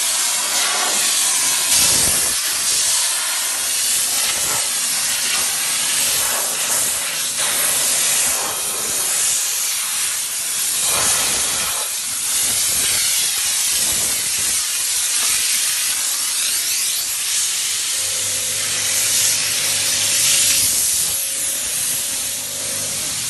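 Electric steam cleaner's hand gun jetting steam against a car's bodywork: a loud, continuous hiss. A low steady hum comes in twice, lasting a few seconds each time.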